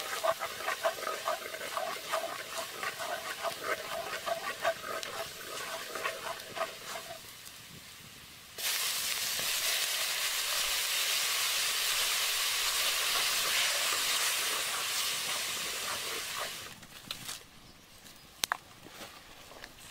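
Hot oil and spices in a wok over a wood fire, sizzling loudly with steam: the hiss starts abruptly a little before halfway and dies down after about eight seconds. Before it comes a quick run of short pitched pulses, and near the end a few faint clicks.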